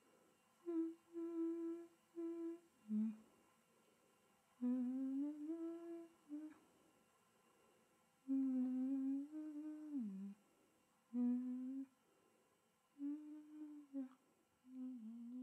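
A person humming a slow, wordless tune in short held notes and phrases with pauses between them; a few notes slide downward in pitch.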